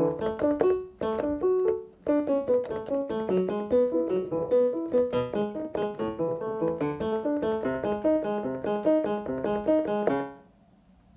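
Piano music: a quick, busy run of notes, with a short break about two seconds in. The playing stops shortly before the end and the last notes fade away.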